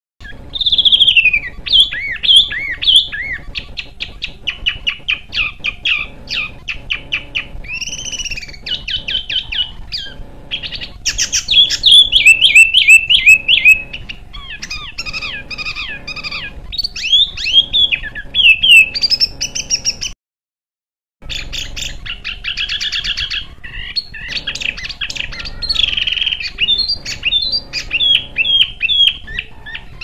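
Fast, dense songbird song of rapid chirps, trills and sharp whistles from an edited compilation of bird recordings. It cuts out completely for about a second about two-thirds of the way through, then resumes.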